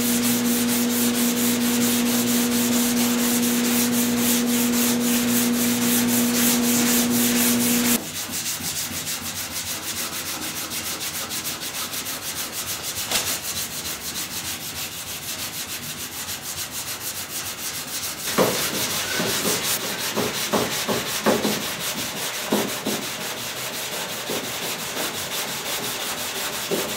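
Block sanding the primer on a steel car fender: sandpaper on a sanding block rubbed in rapid back-and-forth strokes. A steady hum runs under it and cuts off suddenly about a third of the way in, and several sharp knocks come in the later part.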